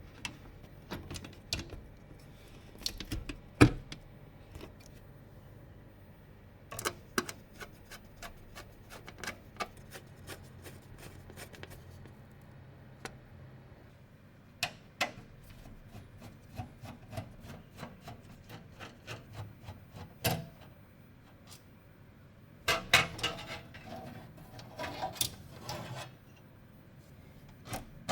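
Scattered clicks, light knocks and rubbing of computer parts being handled and fitted together during a PC build, with a sharp knock about four seconds in and a quick run of clicks near the end.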